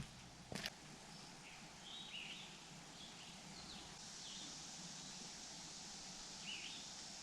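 Faint woodland ambience with birds giving a few short, scattered chirps, and a single soft knock about half a second in.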